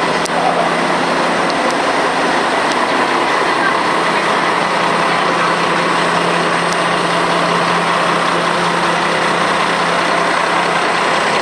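Diesel engine of a KiHa 147 railcar idling while the train stands at the platform, a steady low hum under a constant wash of noise.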